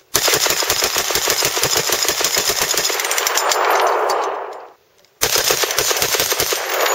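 Crank-fired semi-automatic Browning 1919 A1 .30-calibre belt-fed gun firing two long, rapid strings of shots. Each string is followed by an echo that dies away over about a second and a half.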